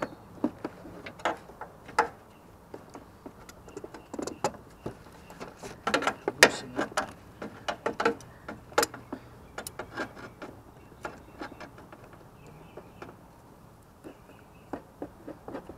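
Irregular clicks, taps and knocks of hand tools and metal hose fittings being worked loose on a 2009 Prius's inverter coolant pump hoses, with a cluster of louder clanks about six seconds in.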